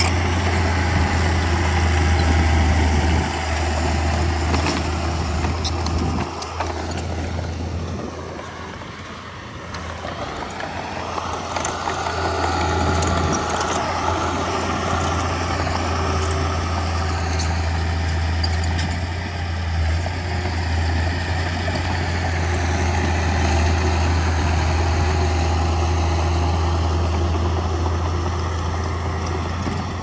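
Heavy diesel earthmoving machinery running with a steady low engine drone. It eases off about eight seconds in and builds again a few seconds later.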